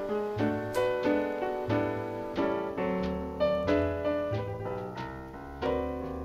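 Background piano music, with notes struck in a steady run over low bass notes.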